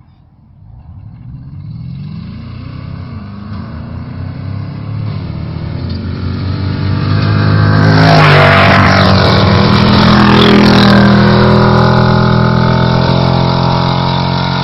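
Two 300 hp off-road buggies with Audi ABZ 4.2-litre V8 engines racing at full throttle toward and past the microphone. The engine note climbs and dips back as they shift up, grows loud as the first buggy passes close about eight seconds in with a drop in pitch, and stays loud while the second follows before easing off near the end.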